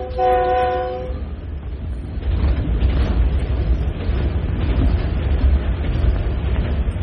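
Diesel locomotive's multi-tone air horn sounding a chord, with a short break right at the start, then cutting off about a second in. After that comes the steady rumble of the running train, with wind buffeting the microphone at speed.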